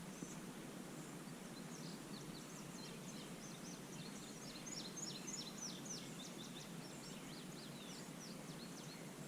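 Faint bird song: a quick run of short, high chirps that sweep downward, thickest around the middle, over a steady low outdoor hiss.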